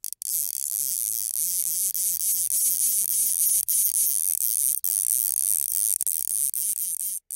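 Steady, high-pitched buzzing hiss that starts suddenly and cuts out briefly a few times.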